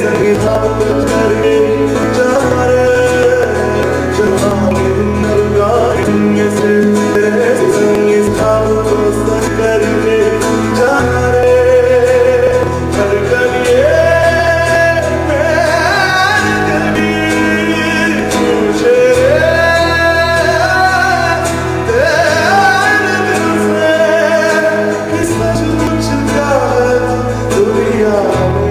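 A live band playing, led by a male singer with acoustic guitar: a sung melody sliding between notes over steady low bass notes that change every two or three seconds, with drums behind.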